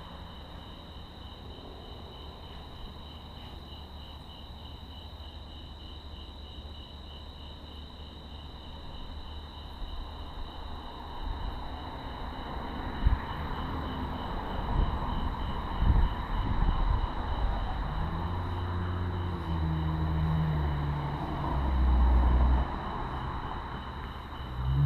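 Crickets chirping in a steady, high, evenly pulsed trill. About halfway in, low rumbling noise and a couple of sharp knocks come up, and a low droning hum that steps in pitch runs through the last few seconds.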